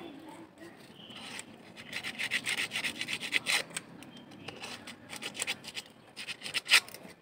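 Quick rasping strokes of something being scraped or sanded by hand, in several runs, the loudest stroke just before the end.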